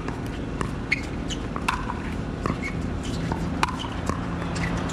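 Pickleball paddles striking the hollow plastic ball in a fast rally: a quick series of sharp pops, about two to three a second.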